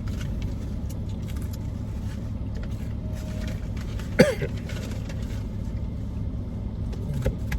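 Steady low rumble of a car cabin, with one short, sharp voice sound about four seconds in.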